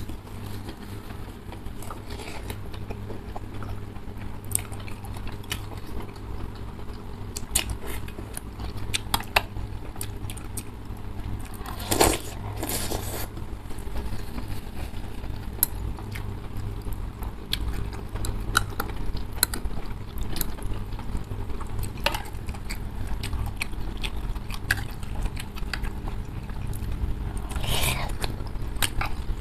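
Eating sounds from a bowl of instant noodle soup: forks and spoons clicking against ceramic bowls and chewing, with loud noodle slurps about twelve seconds in and again near the end. A steady low hum lies under it all.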